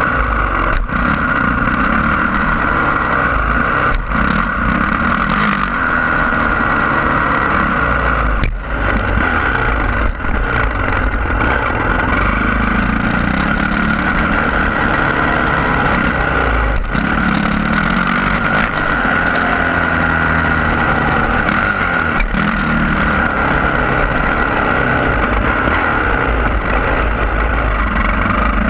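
Yamaha YZ450F's single-cylinder four-stroke engine, heard from an onboard camera, with revs rising and falling under load as the bike is ridden, and a few sharp knocks along the way.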